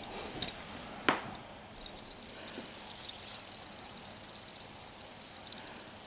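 Metal fidget spinner flicked with a sharp click about a second in, then spinning on its bearing with a steady high whine and a fine, fast rattle.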